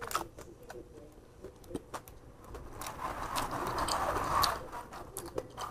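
Eating sounds: small clicks and scrapes while a fried fish is picked apart by hand and with a fork, along with chewing. A rushing hiss swells about two and a half seconds in and dies away after about four and a half seconds.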